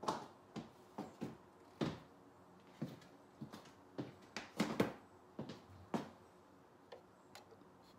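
A series of light knocks and thuds, uneven and roughly two a second, from someone walking off with the cake tin and handling things; the loudest cluster comes a little past halfway.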